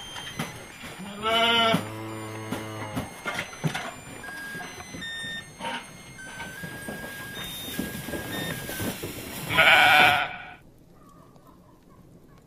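Sheep bleating: one loud bleat about a second in and another about ten seconds in, with scattered light knocks from the flock in between.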